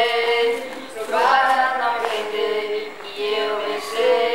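Voices singing long, drawn-out notes without accompaniment, the phrases gliding up and down between held notes.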